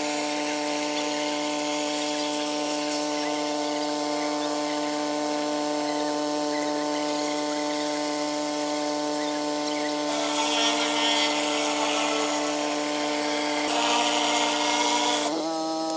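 Pressure washer running steadily with a hiss of water spray. The spray gets louder twice in the second half, then the sound switches abruptly to a different steady hum just before the end.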